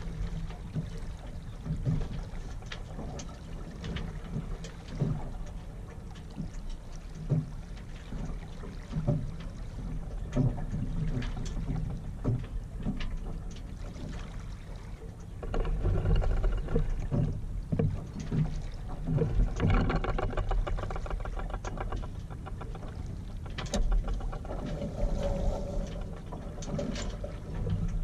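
Water lapping against the hull of a Yamaha 24 sailboat moving slowly under sail, with a steady low rumble and scattered knocks and clicks from the boat. A little past the middle, a louder, busier stretch of clicking and rushing noise lasts about five seconds.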